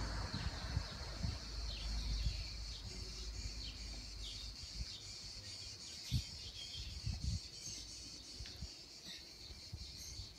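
Small birds chirping repeatedly, short falling chirps over a steady high insect buzz, with irregular low thumps on the microphone.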